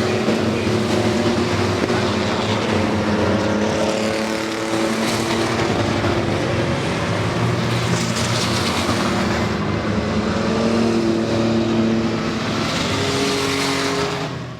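Several racing pickup trucks' engines running together at speed on a short oval track, with a number of engine notes overlapping at different pitches.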